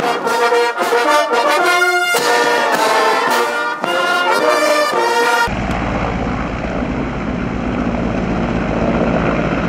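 Military brass band playing a march. About five and a half seconds in, the music cuts off abruptly and is replaced by the steady running noise of a military transport helicopter, a low rumble with a steady drone.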